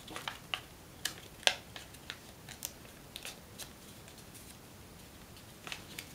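Sheet of origami paper handled and creased by hand during a reverse fold: scattered crisp paper crackles and clicks, with a short lull near the end.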